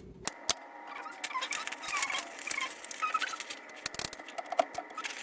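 Metal parts of a manual Royal typewriter being handled as its ink ribbon and paper are fitted: a run of small clicks and rattles with short squeaks, a few of the clicks sharper than the rest.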